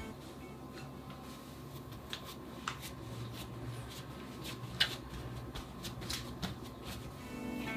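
Light kitchen handling sounds: soft rustling with scattered small clicks and taps, one sharper tap about five seconds in.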